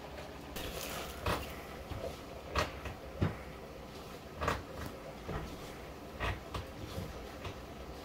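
Roti dough being mixed by hand in a ceramic bowl: irregular light knocks and clinks against the bowl, about ten in all.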